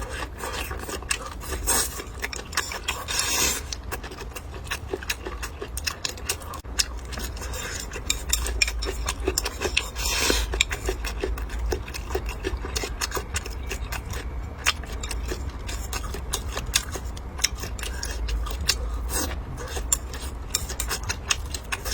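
Close-miked eating sounds: chewing and crunching with frequent small clicks and taps of utensils against dishes, over a steady low hum.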